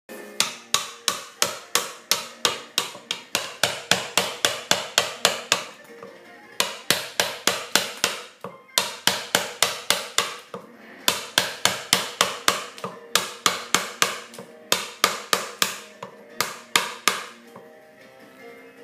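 Mallet striking the handle of a carving chisel as it is driven into a wooden block during rough carving: quick, even blows about four a second, in runs broken by short pauses, the longest near the end.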